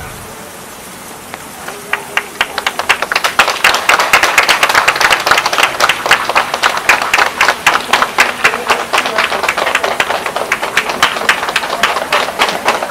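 A group of people clapping. It starts with a few claps about a second and a half in and quickly grows into loud, dense, irregular applause that keeps going.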